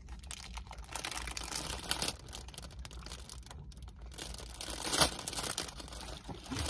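Clear plastic pastry bag crinkling and rustling in irregular bursts as it is handled, with one sharp click about five seconds in.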